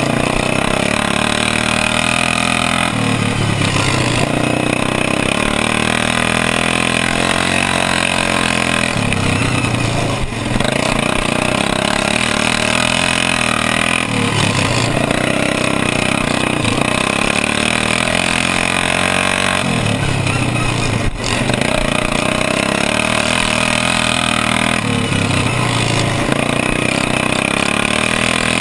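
Racing lawn mower's engine running hard at high revs, its pitch dropping and climbing back about every five to six seconds as it eases off and drives out of each turn.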